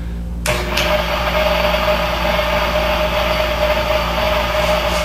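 Van Norman 777 boring bar's motor switching on about half a second in, then running steadily with a constant whine as its cutter head spins in the engine cylinder.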